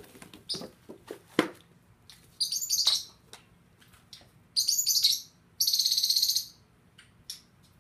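Small caged pet birds chirping in three short bursts, the longest a buzzy chatter of about a second near the middle. A few faint clicks of a boxed toy being handled in the first second and a half.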